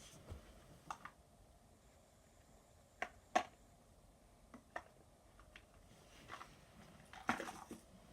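Sparse small clicks and taps of objects being handled, with a short rustle near the end; the loudest are two sharp taps about three seconds in.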